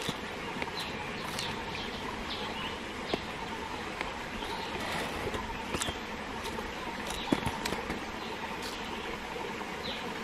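Green june plum being bitten and chewed: scattered sharp crunches and clicks, the loudest about seven seconds in, over a steady hiss, with a few short falling bird chirps.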